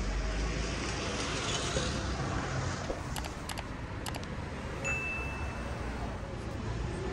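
Dry cat food rattling in a plastic container, a few short light clicking shakes about three and four seconds in, over steady street traffic and wind noise; a short high steady tone comes near five seconds.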